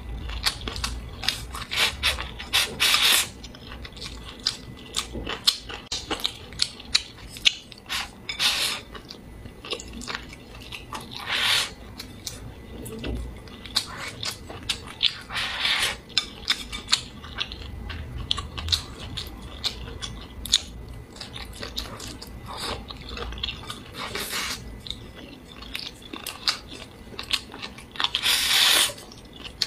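Close-miked eating of braised pork and rice: wet chewing with crunches and lip smacks in quick succession. Several longer slurps come as food is sucked in from the bowl's rim, the last and loudest near the end.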